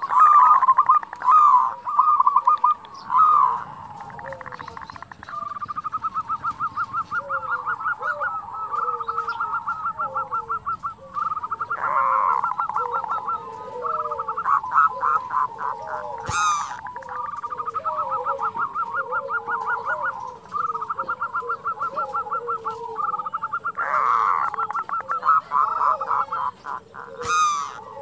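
Zebra doves (perkutut) calling: long runs of rapid, clipped rattling 'kerot' notes, with short, lower cooing 'bekur' notes between and beneath them. Two sharp clicks come midway and near the end.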